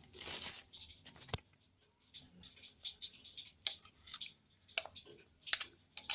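Stir-frying in a pan: a spatula scrapes and taps against the pan, with short bursts of sizzling and several sharp clicks.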